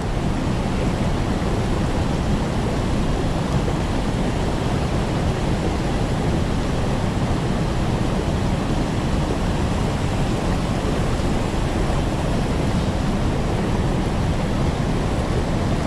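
Steady rushing of a mountain stream, water tumbling over rocks and a small weir, as an even unbroken roar.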